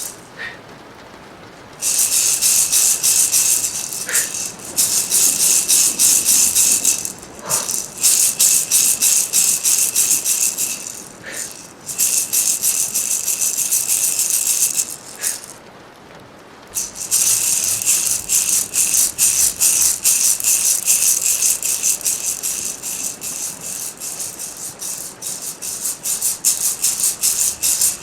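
Hand rattle shaken in steady pulsing bouts, a bright dense rattling of many small beads or seeds. It stops briefly near the start and again about halfway through, then resumes.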